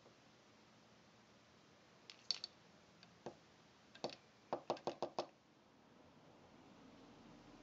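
Plastic pump cylinder of a garden pressure sprayer being handled and taken apart, giving light clicks and knocks. They start about two seconds in and end in a quick run of five or six clicks around the five-second mark.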